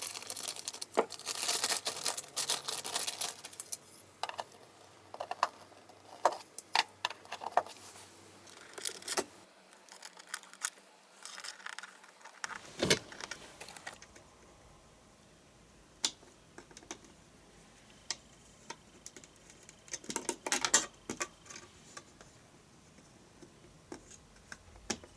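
Plastic parts of a model railway station kit being handled and fitted together: scattered clicks and light clattering, with rustling in the first few seconds.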